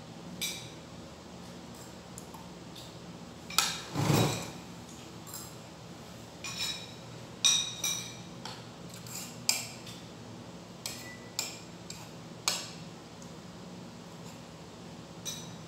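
Metal spoon clinking and scraping against a ceramic bowl, in irregular single strikes. About four seconds in comes a louder noisy burst lasting about half a second.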